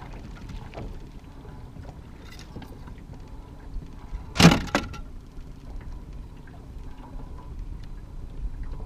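Steady wind and water noise aboard a small aluminum fishing boat, with one sharp knock a little past halfway and a smaller knock right after it.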